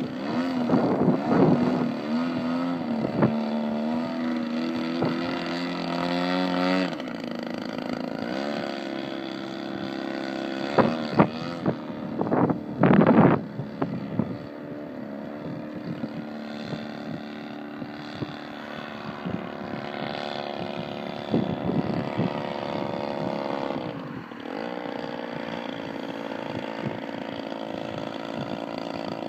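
Giant-scale RC aerobatic plane's engine and propeller in flight, the pitch rising and falling again and again as the throttle and the plane's distance change. A few short, loud bursts come about halfway through.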